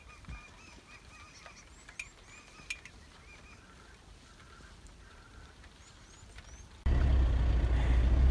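Birds calling over a quiet background: a repeated chirping call and a few short high whistles. About seven seconds in it cuts abruptly to the loud, steady low drone of a car driving, heard from inside the cabin.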